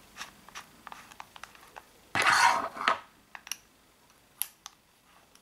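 Clicks and plastic-and-metal handling noises as a 12-gram CO2 capsule is fitted into the grip of an Umarex HDP50 CO2 pistol. About two seconds in there is one louder, rough noisy burst lasting nearly a second.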